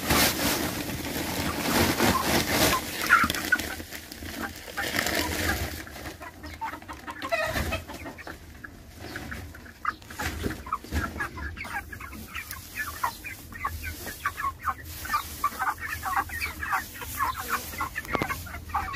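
Dry wheat straw rustling as it is poured and shaken out of a sack onto the pen floor as bedding, loudest in the first several seconds. Then a flock of broiler chickens clucking in quick, repeated short calls.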